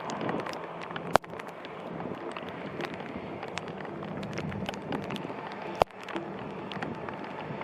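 Typhoon wind and heavy rain on the microphone: a steady rushing noise with many small taps of raindrops, and two sharp knocks, about a second in and near six seconds.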